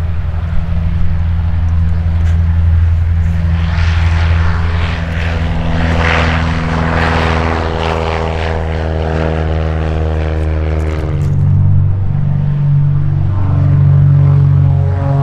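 Single-engine Cessna high-wing plane at full takeoff power climbing past, its propeller drone sliding slightly lower in pitch as it goes by. About 11 seconds in it switches to a twin-engine propeller plane at full power on its takeoff roll, the two engines beating against each other in an uneven throb.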